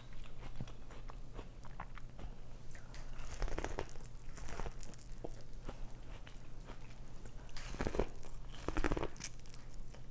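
Close-miked mouth sounds of a person chewing and biting food, with wet clicks and several louder bites, about 3.5 s in and again near 8 and 9 s, over a steady low hum.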